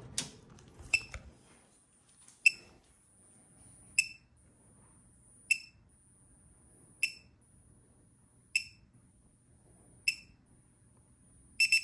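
Handheld gas leak detector ticking slowly, a short high chirp about every one and a half seconds over a faint steady high whine: the slow idle rate of a detector that finds no gas.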